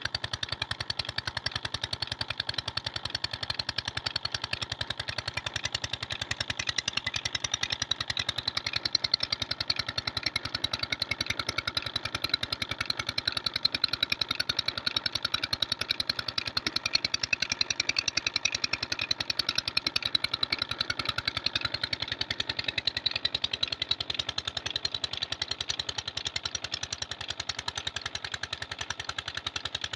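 16 hp KAM Peter diesel engine running steadily with an even, rapid exhaust beat, belt-driving a tubewell water pump.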